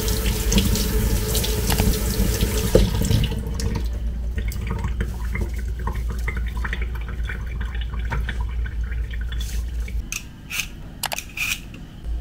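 Kitchen tap running onto broccoli in a glass bowl over a stainless steel sink, the water stopping about three and a half seconds in. After that, quieter handling sounds, with a few sharp clicks and knocks near the end.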